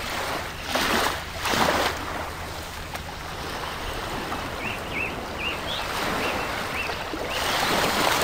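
Steady rushing hiss of aquarium water and aeration over a low pump hum, with two louder surges of noise about a second in. A series of short high chirps comes in the second half, and the rushing noise rises near the end.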